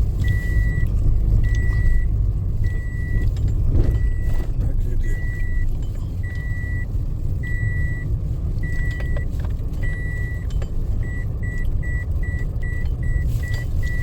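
A vehicle's reversing beeper sounds one steady high tone about once a second, over the low rumble of an engine. About eleven seconds in it switches to short, rapid beeps, about four a second.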